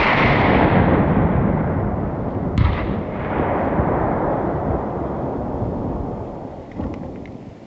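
Shots from a hunter's scoped gun, with their sound rolling back from across a wooded valley. The crack of a shot fired just before is still dying away, a second shot comes about two and a half seconds in and fades slowly over several seconds, and there is a fainter crack near the end.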